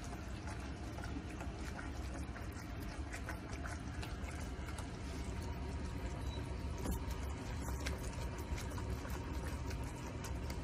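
Caramel syrup of melted sugar and water boiling and bubbling in a saucepan while being stirred with a silicone spatula, as the added water cooks off. The sound holds steady throughout.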